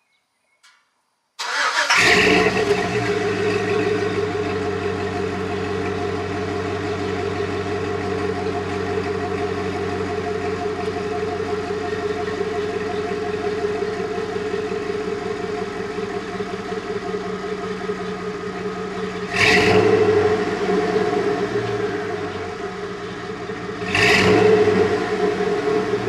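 Chevy pickup engine started and heard at the tailpipe through a newly fitted aftermarket muffler. It catches about a second and a half in and settles into a steady idle. It is revved briefly twice near the end.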